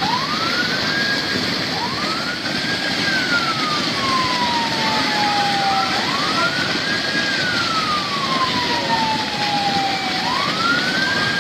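A siren wailing in slow cycles: each rises quickly, then falls slowly over about three seconds, repeating about every four seconds. Under it runs the steady rush of a muddy flash-flood torrent.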